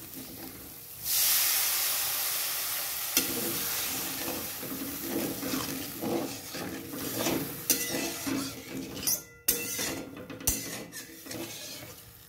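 Water poured into a hot metal kadai of fried masala paste bursts into a loud sizzle about a second in and slowly dies down. A wooden spatula then stirs the watery gravy, scraping and knocking against the pan.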